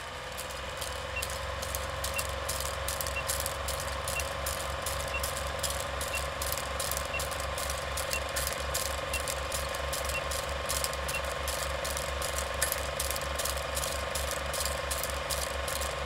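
Vintage film-projector sound effect for a film-leader countdown: a steady, rapid mechanical clatter over a low hum, with a short high beep once a second that stops about eleven seconds in.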